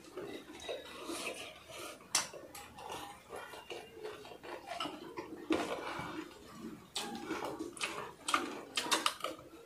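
Metal spoons clinking and scraping against ceramic bowls as several people eat in a hurry, with scattered sharp clicks that bunch together near the end.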